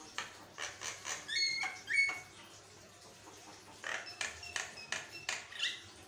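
Javan myna calling in two bursts of harsh, rasping chatter mixed with short whistled notes: the first over the first two seconds, the second starting about four seconds in.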